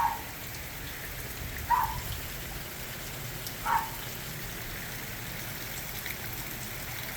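Heavy rain falling steadily, an even hiss. Three short chirps sound about two seconds apart in the first four seconds.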